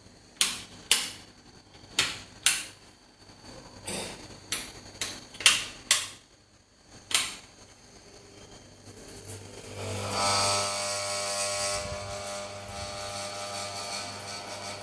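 A series of sharp clicks, then a Bajaj Regal Underlight ceiling fan's motor starts about nine seconds in, its hum and whir building and then running steadily.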